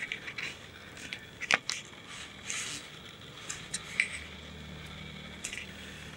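Cat batting at a hard plastic ball-track toy: irregular clicks, taps and short scrapes of paw on plastic as the ball inside is knocked about, the sharpest click about a second and a half in.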